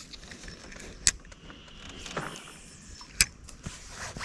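Spinning rod and reel being handled: scattered light clicks and rattles, with two sharper clicks about a second in and a little after three seconds.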